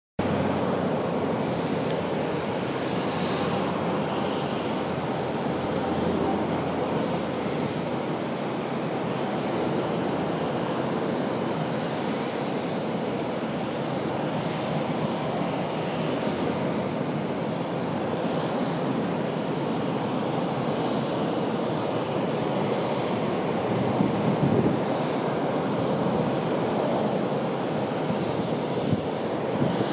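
An airborne Airbus A400M's four TP400 turboprop engines and eight-bladed propellers make a steady, even drone that grows slightly louder near the end.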